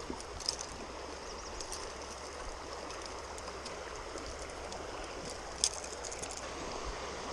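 Creek water flowing steadily, an even rushing sound, with a few faint high ticks and one sharper click a little past halfway.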